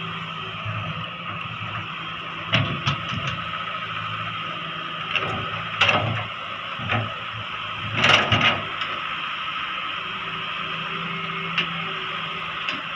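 Heavy excavator's engine running steadily, with a series of sharp clanks and knocks over it, the loudest a cluster about eight seconds in.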